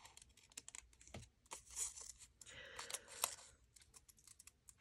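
Small craft scissors snipping paper in fussy cutting: a run of faint, irregular clicks with light paper rustling between them.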